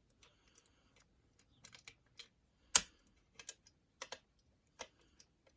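A hooked wire and a homemade tension tool being worked inside an old single-lever rim lock: scattered light metallic clicks and scratches, with a sharper click nearly three seconds in and another right at the end, as the lock gives.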